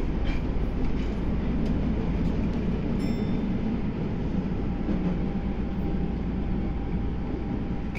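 Nagoya Municipal Subway Meijo Line 2000-series train running steadily through its underground tunnel, a constant rumble of wheels and running gear heard from inside the passenger car. A brief high click comes about three seconds in.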